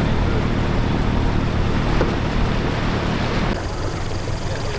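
Boat motor running with a rush of water and hull noise. About three and a half seconds in, the rush drops away and the motor carries on more quietly, as if throttled back toward idle.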